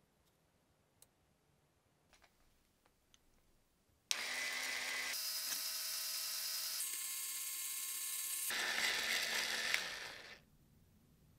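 A few faint clicks, then about four seconds in a small electric motor starts abruptly and runs with a steady whir for about six seconds, spinning a stick that mixes two-part epoxy resin in a plastic bottle. The sound fades out near the end.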